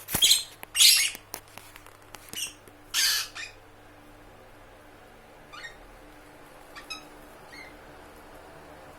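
Lovebirds giving a string of loud, harsh squawks over the first three and a half seconds, then a few faint short chirps.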